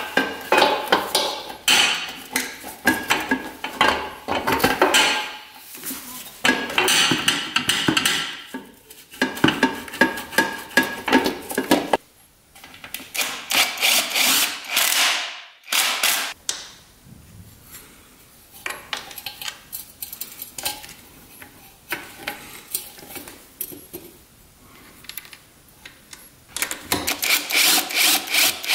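Hand tools working on metal parts: quick runs of clicks, ticks and clinks with some metallic ringing, thinning out to sparser ticks for a while past the middle and picking up again near the end. This is the work of fitting the exhaust with its new gasket to the two-stroke engine.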